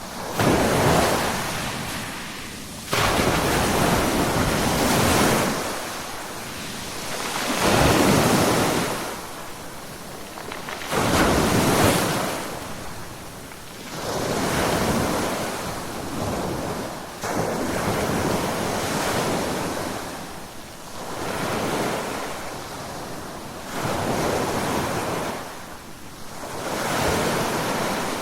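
Ocean waves breaking on the shore one after another, each swell of surf rising and falling over a few seconds, some breaking with a sudden crash.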